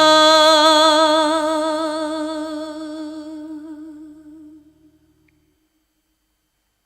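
The closing note of a Mongolian song, held with a wide vibrato and fading away over about five seconds into silence.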